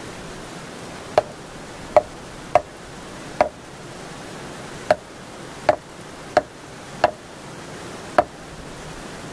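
Nine sharp knocks at uneven intervals as the top of an upright wooden post is struck, driving it into the ground, each blow briefly ringing.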